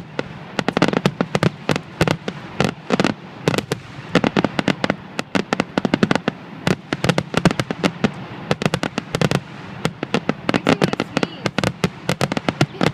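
Fireworks going off in a dense, continuous barrage: rapid, irregular sharp bangs and cracks, several a second.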